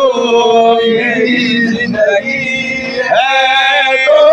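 A man singing a long, drawn-out note of an Urdu devotional song (naat) without words. His voice slides up to a higher held note about three seconds in.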